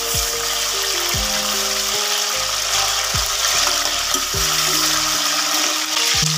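Chicken pieces frying in oil in an open pressure cooker, with a steady sizzle. Background music with low notes and a drum beat plays over it.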